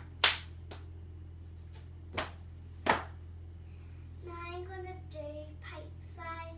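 Sharp hand claps from a child's cheerleading jump routine: a loud clap just after the start, a fainter one soon after, then a faint one and a loud one a little under three seconds in.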